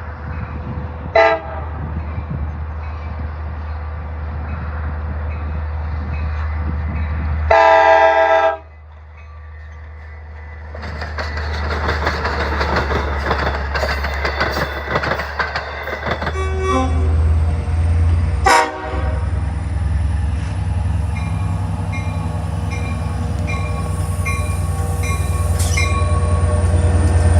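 Long Island Rail Road DE30AC/DM30AC diesel locomotive horns sounding over the rumble of the passing train: a short toot about a second in, a louder longer blast around eight seconds that cuts off suddenly, and two more short blasts later. In the last few seconds a bell dings about once a second.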